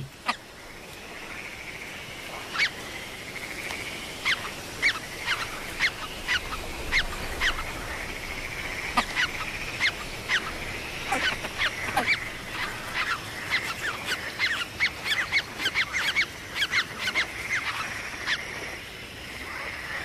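Great crested grebe chicks peeping: many short, high, downward-sweeping calls coming irregularly over a steady high piping. These are the chicks' begging calls while they are being fed.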